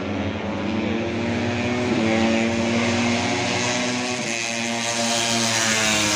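Racing motorcycles running at high revs on the track: several engine notes overlap, their pitch stepping with gear changes and rising again near the end.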